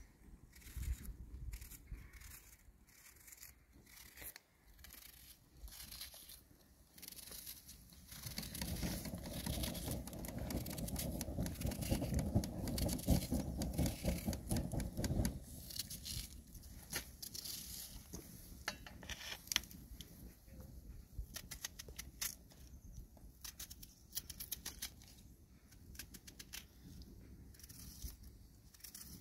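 Hands pulling apart sliced onion layers and mixing them into raw lamb pieces on a metal tray: quick crisp crackles, rustles and light scrapes, denser and louder for several seconds in the middle.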